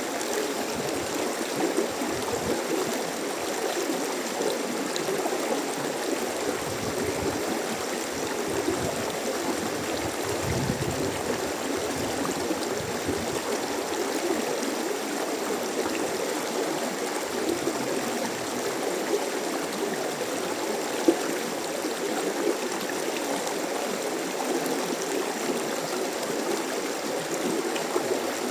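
Small mountain stream flowing in a steady, even rush, with one brief sharp tick about three-quarters of the way through.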